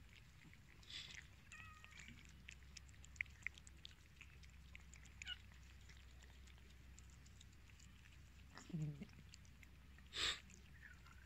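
Cats eating wet food, with many small wet chewing and lapping clicks. A short low cat call comes about nine seconds in, and a brief loud burst of noise just after ten seconds.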